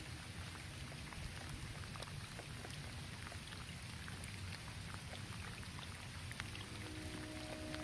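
Light rain falling on a roof: a steady hiss with many small, scattered drop taps.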